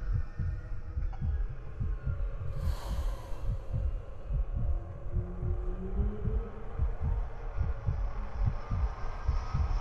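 Electronic sound-design soundtrack built from ocean sound samples: a quick, low, even pulse like a heartbeat, with a short hiss swelling up about three seconds in and a slowly rising tone near the middle.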